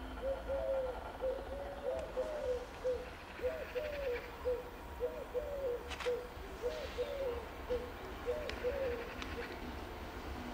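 A pigeon cooing over and over in short groups of notes, over a low steady rumble, with a few sharp clicks.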